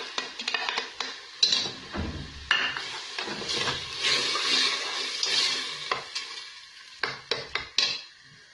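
A spoon scrapes tomato paste off a plate, then stirs chicken pieces frying with tomato in a stainless-steel pot, making quick clicks and scrapes against the pot. The frying sizzle is strongest in the middle.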